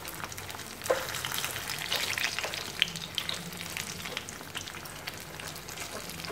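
Sheets of marinated dried tofu skin shallow-frying in hot oil, a steady sizzle and crackle, with small clicks as chopsticks prick holes in the sheets to keep them from puffing up. There is a sharper click about a second in.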